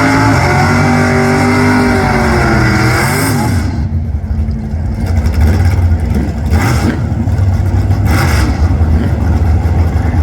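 Drag race car engine running loud, its pitch wavering up and down for the first few seconds as the throttle is worked. It then settles into a rougher, noisier, steady rumble with a few short hissy flares.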